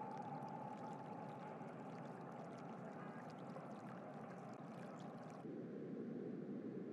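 Faint steady ambient rushing noise, like running water, with light scattered ticks. About five and a half seconds in it changes abruptly to a duller, lower steady rush.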